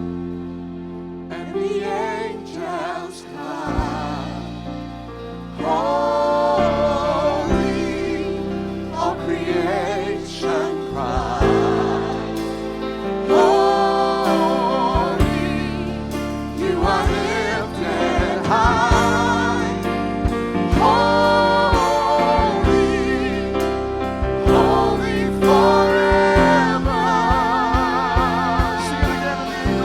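Gospel-style Christmas music: singing in long, wavering held notes over a sustained accompaniment.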